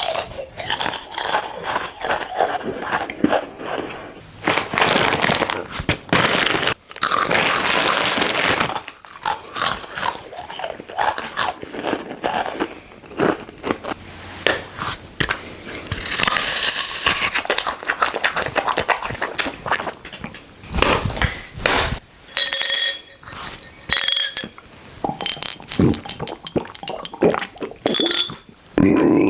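Eating sounds: a rapid run of crunching bites and chewing, with crackles and scrapes.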